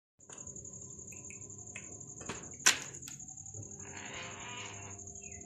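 Insects droning in one steady high-pitched tone, with a single sharp knock about two and a half seconds in and a brief rustle around four seconds.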